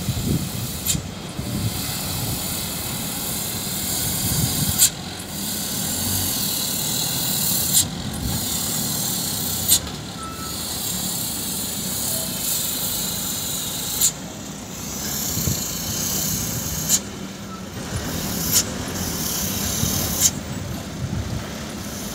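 Loaded light dump truck's engine running as it crawls downhill on a dirt track, under a steady hiss, with a sharp click every few seconds.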